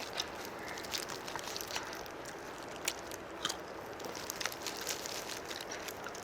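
Crispy fried chicken being bitten and chewed close to the microphone: scattered sharp crunches and crackles over a steady low hiss.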